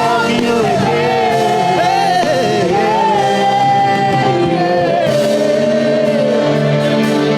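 Live gospel choir music: voices singing and shouting over a band, with held and sliding sung notes.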